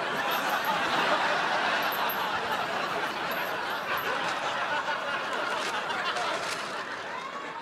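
Sitcom studio audience laughing steadily, easing off a little near the end.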